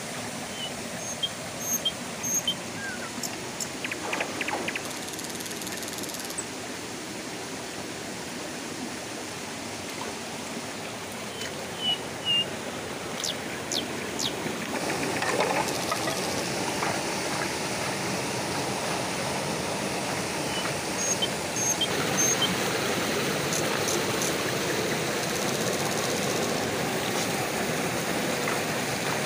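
Shallow river water rushing over rocks, a steady wash that gets louder about halfway through, with a few splashes from feet wading through the water.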